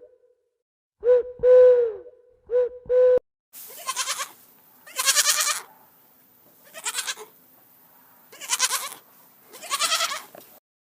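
Four short hooting calls, then a goat bleating five times in wavering calls about a second or two apart.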